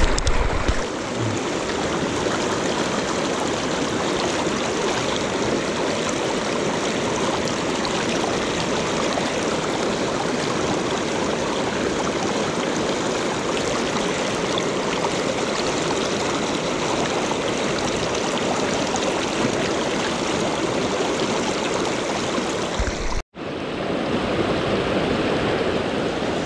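Shallow rocky river rushing over stones in riffles: a steady, loud rush of water that cuts out for an instant near the end.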